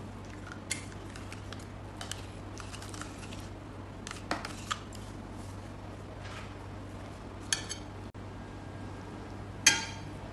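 A spoon clinking and scraping against glass bowls while scooping a thick yogurt-and-tahini sauce: a handful of scattered clinks, the loudest one near the end.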